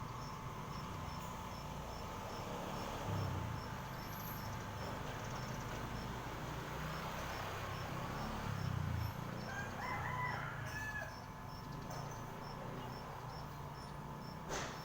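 A bird calling once, a pitched call of about a second and a half about two-thirds of the way in. Under it runs a steady high ticking, roughly two or three ticks a second, as from insects. A short sharp click comes near the end.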